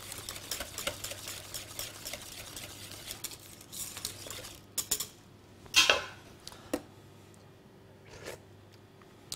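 Wire whisk beating thick soup in a stainless steel saucepan, a fast run of scraping clicks against the pot for about four and a half seconds. Then a few separate metal clinks of utensils, the loudest about six seconds in.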